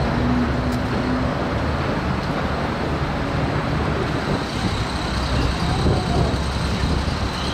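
Steady road traffic noise: cars and buses running along the street beside the footpath.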